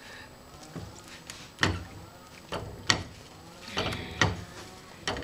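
Metal spatula slapping down on an oat pancake in a nonstick frying pan, pressing it flat: three or four sharp taps, the last ones close together near the end.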